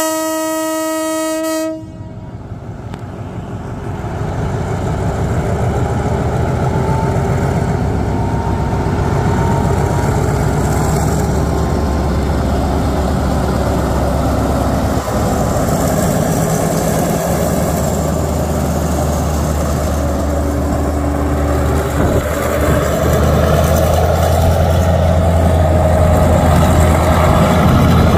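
A diesel train sounds one steady horn blast of under two seconds, then its engine builds up and runs on steadily with a deep rumble, getting louder near the end.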